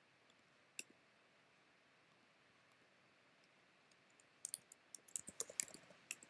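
Computer keyboard being typed on: a single keystroke about a second in, then a quick run of keystrokes near the end.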